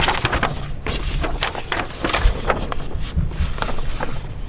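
Paper rustling and crinkling, with quick irregular crackles, as the pages of a printed quick reference guide for a sewing machine are handled and turned.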